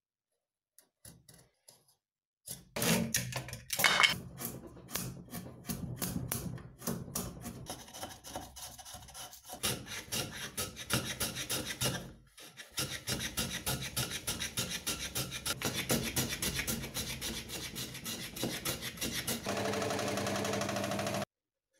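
A hand plane shaving a wooden post in quick repeated scraping strokes. For the last couple of seconds a scroll saw runs with a steady hum, then cuts off suddenly.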